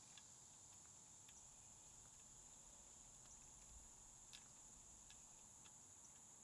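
Near silence: a faint, steady, high-pitched drone of insects, with a few faint, light clicks scattered through it.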